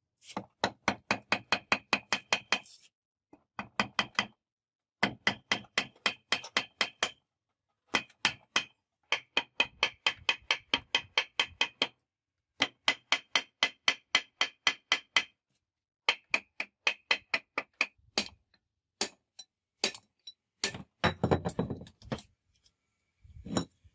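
Rapid hammer blows on a rusty truck air compressor's cast-iron housing, about five strikes a second in runs of two to three seconds with short pauses, each blow ringing metallically.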